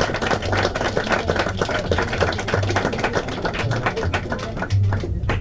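Audience applauding, a dense patter of hand claps that thins out and stops near the end.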